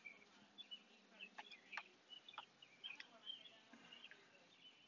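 Near silence outdoors: faint bird chirping in the background, with a few light clicks and taps of handling close to the microphone.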